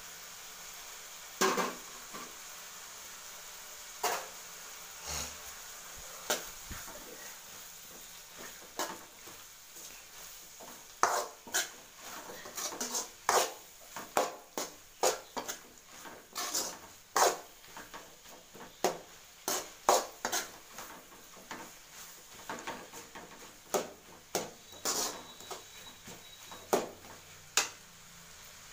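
A long steel spoon stirring and tossing goat intestine fry in an aluminium kadai, clinking and scraping against the pan in irregular strikes: a few at first, then about two a second from around eleven seconds in.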